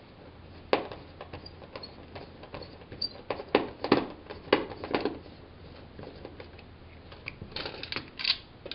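Irregular light clicks and knocks of a plastic thermostat base plate and its wires being handled and worked loose from the wall, with a quicker run of clicks near the end as the plate comes away.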